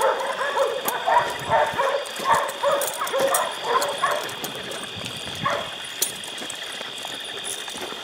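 Hunting dogs barking and yipping in quick, excited bursts that stop about four and a half seconds in.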